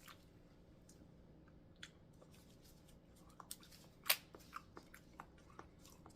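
Crab shells being cracked and picked apart by hand while eating, heard as scattered short cracks and clicks, a few more of them in the second half and the sharpest about four seconds in, with some chewing.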